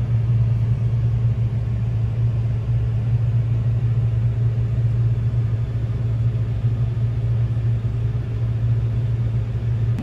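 Combine harvester running, heard from inside its cab as a loud, steady low drone.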